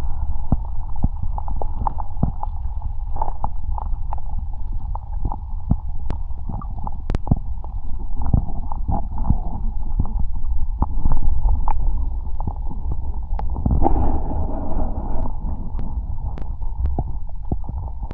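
Wind buffeting the microphone as a steady low rumble, with scattered short clicks and knocks throughout.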